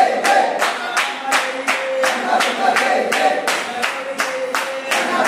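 A group of voices singing a bhajan, a devotional song, to a steady beat of hand claps about three times a second.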